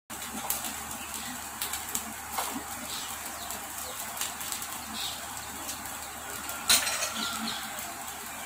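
Faint crackling and scattered light ticks from flattened rice toasting dry in a pan over a low gas flame, with one brief louder noise about seven seconds in.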